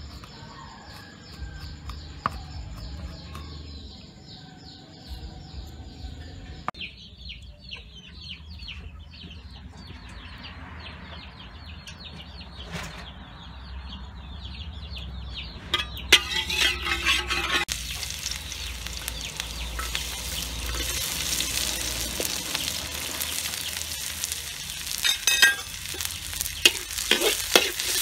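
Sliced shallots and minced ginger hitting hot oil in a steel wok: a sudden loud sizzle about halfway through that keeps going. Near the end a metal spatula scrapes and taps against the wok as they are stirred.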